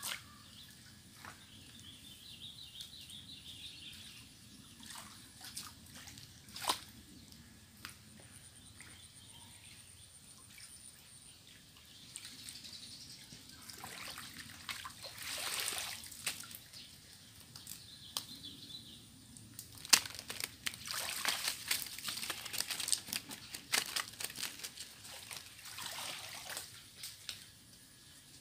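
Shallow muddy water sloshing, trickling and splashing as hands and a plastic crate scoop and stir through a drying pond's last puddle. The splashes come in busy spells near the middle and again in the second half, between scattered small knocks.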